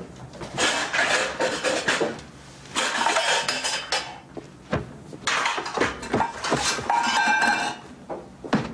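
Things clattering and knocking inside a lower kitchen cupboard as it is rummaged through. The clatter comes in three long bursts, with a single sharp knock between the second and third.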